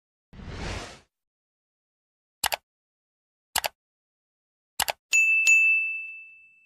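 Subscribe-button animation sound effects: a short whoosh, then three double mouse clicks about a second apart, then a notification-bell ding struck twice and ringing out.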